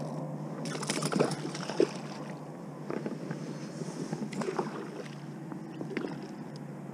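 Knocks and clatters against a small plastic fishing boat's hull, with water splashing alongside, over a steady low hum. The sharpest knock comes just under two seconds in.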